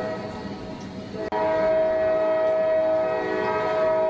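Diesel locomotive air horn blowing a long, steady chord of several notes, the warning for an approaching train at a grade crossing. It breaks off for an instant a little over a second in, then comes back louder and holds.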